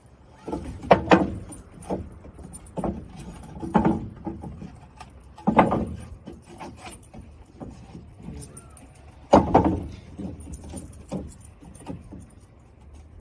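A long wooden plank knocking and scraping against wooden deck boards as a dog bites and tugs at it. The knocks come at uneven intervals; the loudest are about a second in, midway, and about nine and a half seconds in.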